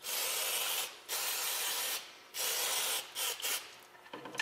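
Aerosol spray can hissing through its straw into a Mikuni snowmobile carburetor, cleaning it out. Three spray bursts of about a second each, then two short squirts near the end.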